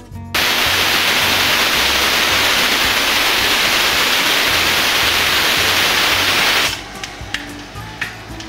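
Fenugreek seeds dropped into hot mustard oil, sizzling loudly and steadily for about six seconds as the seeds fry. The sizzle then falls away sharply to a quieter bed with a few scattered small pops.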